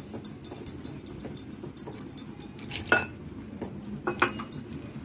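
A metal spoon stirring flour in a glass bowl, scraping and clinking against the glass, with a few sharper clinks about three and four seconds in.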